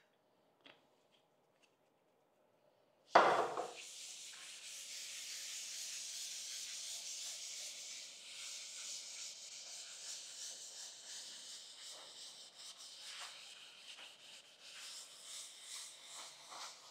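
Scotch-Brite abrasive pad scrubbing an oiled cast iron saw table by hand to lift the grime. A steady scouring hiss starts abruptly about three seconds in, after near silence, and becomes more uneven with the back-and-forth strokes near the end.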